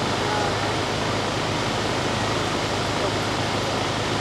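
Steady outdoor background noise: an even hiss with a low hum underneath and no distinct event.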